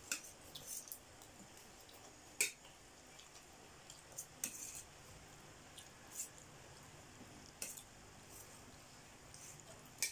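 Spoons and forks clinking and scraping against stainless steel plates as food is scooped up, a few faint, separate clinks every second or two.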